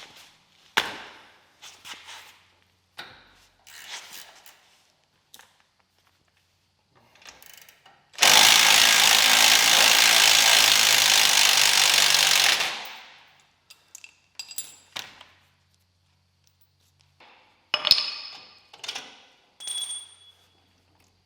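An impact driver hammering on a bolt in one continuous run of about four and a half seconds around the middle. Short clinks and ratchet clicks from hand tools come before and after it.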